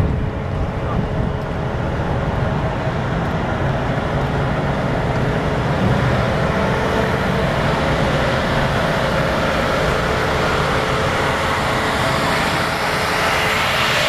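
Road traffic passing close: a car drives by, then a large truck approaches, its tyre and engine noise growing louder and brighter near the end.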